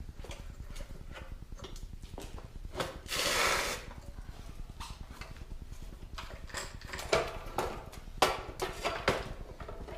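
Scattered clicks and knocks from an old Craftsman compound miter saw being handled and adjusted, with a short hissing rush about three seconds in.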